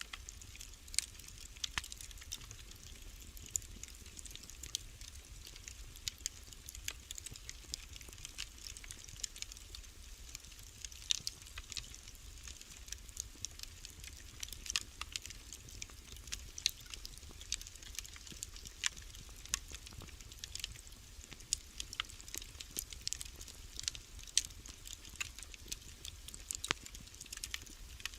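Wood fire in a fireplace crackling, with frequent irregular sharp pops and snaps over a low steady rumble.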